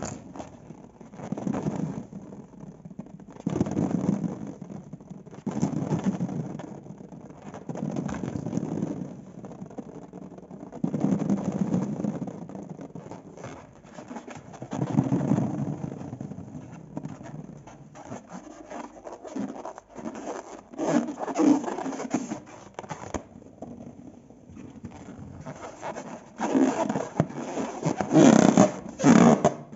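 Slime being mixed and worked in a bowl: repeated wet, crackly scraping strokes about every two seconds, getting louder and busier near the end.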